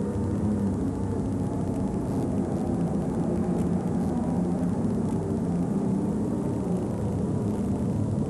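Super stock pulling tractor's engine running flat out under full load during a pull, a loud, steady drone.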